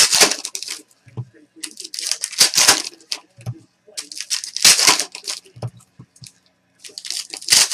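Foil-plastic trading-card pack wrappers crinkling and tearing as football card packs are ripped open by hand, in four bursts of about a second each.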